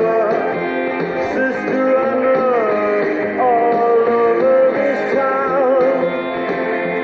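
Background rock music with guitar, its lead melody sliding and bending in pitch.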